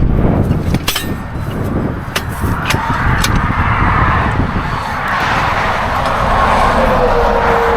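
Road traffic passing with a steady low rumble, a vehicle going by in the second half. A few sharp clicks in the first three seconds.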